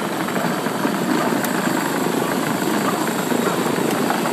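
Battery-powered ride-on toy truck driving on asphalt: its plastic wheels and electric drive make a steady, even rolling rattle.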